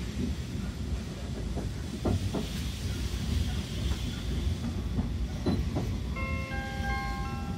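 Steam-hauled passenger coach running, heard from inside: a steady low rumble with the clack of wheels over rail joints in pairs every second or two, and a hiss midway. About six seconds in, an on-board announcement chime begins, a melody of bell-like tones.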